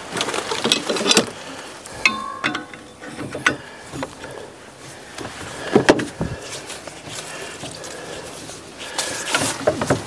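A hose fitting being turned with hand tools: irregular metal clicks and knocks, with a short squeak about two seconds in.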